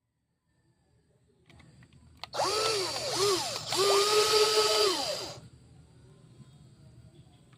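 Gear motors of a WL16800 radio-controlled model excavator running in three spurts, a grinding whine that rises in pitch as each spurt starts and falls as it stops; the last and longest lasts about a second and a half.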